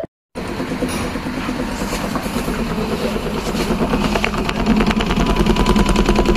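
A cat purring right against the microphone: a steady, fast rumble that grows gradually louder.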